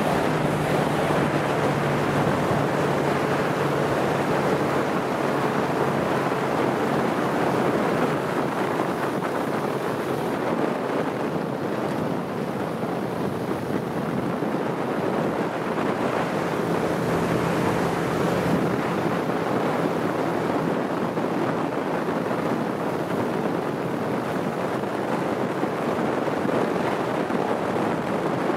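Steady rush of wind and water from a moving boat on open water, with a boat engine's low hum faintly underneath. The hum is plainest in the first few seconds and again a little past the middle.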